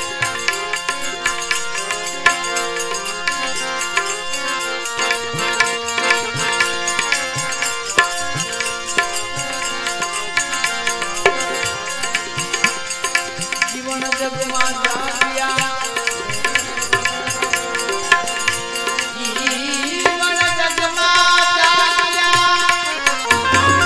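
Desi Gujarati bhajan music: tabla beating steadily under a melodic instrument playing a repeating tune, with little or no singing.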